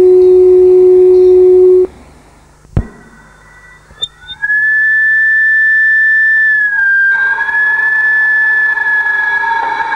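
Two long steady whistle-like tones. A low tone cuts off about two seconds in, followed by a sharp click. A few seconds later a high tone starts and holds, dipping slightly in pitch around seven seconds, then sounding fuller.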